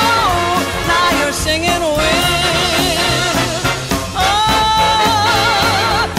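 Music: a song with long, wavering held melody notes over a bass line.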